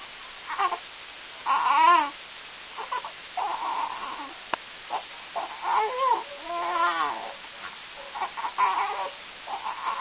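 Newborn baby fussing and crying in short, wavering cries, the loudest about two seconds in and another long cry around six to seven seconds in.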